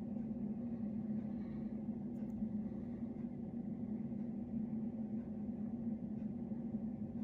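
A steady low hum that stays the same throughout, with a faint tick about two seconds in.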